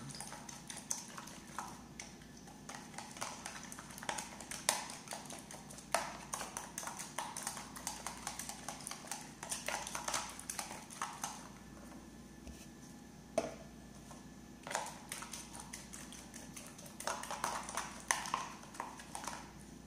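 Two eggs being beaten with a fork in a plastic container: rapid clicking and tapping of the fork against the container, in bursts with short pauses.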